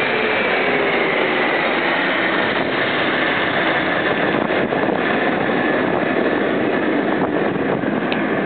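A Bombardier CRJ-700's twin rear-mounted turbofans on landing approach passing overhead, a loud steady jet rush with a whine that drops in pitch as the aircraft passes and heads away.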